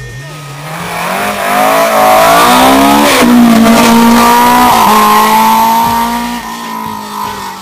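Rally car driving flat out past at close range: its engine note rises and grows louder as it approaches, is loudest as it passes about four seconds in, then drops in pitch and fades away.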